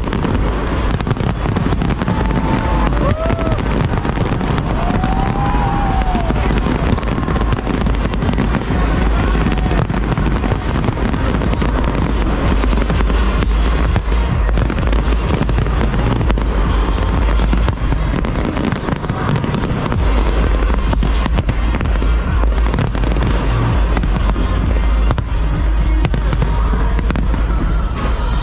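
Large fireworks display: a continuous barrage of bangs and crackling bursts with no let-up. A few short rising-and-falling whistles sound a few seconds in.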